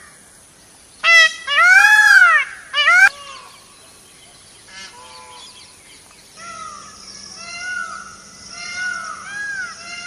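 Indian peafowl (peacock) calling: three loud, wailing calls, each rising and falling in pitch, the middle one longest, about one to three seconds in. After a lull with a faint call, a quicker run of shorter, quieter rising-and-falling calls starts about six seconds in.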